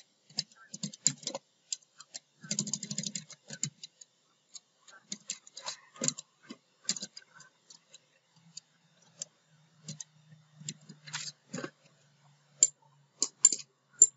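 Computer keyboard keystrokes and clicks, irregular and sparse, the sharpest near the end, with a faint low hum over the second half.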